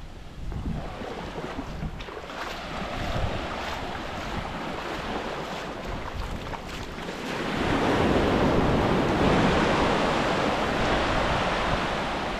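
Ocean waves breaking and washing up the beach, with wind buffeting the microphone. A wave surges louder a little over halfway through.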